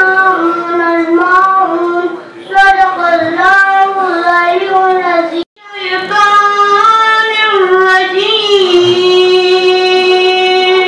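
A high voice chanting Quranic recitation (tajweed) in long, drawn-out melodic phrases, with a brief break about halfway and a long held note near the end.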